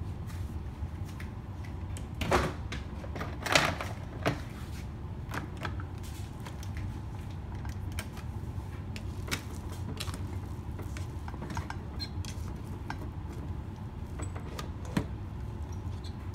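Electric rice cooker's lid being unlatched and swung open: a few sharp clicks and knocks a few seconds in. Then light scraping and ticking of a plastic rice paddle fluffing the cooked rice in the cooker's inner pot.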